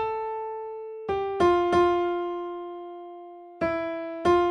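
Keyboard in a piano voice playing a slow right-hand melody one note at a time. Each note is struck and left to ring and fade: three quick notes about a second in, then a long held note, then two more near the end.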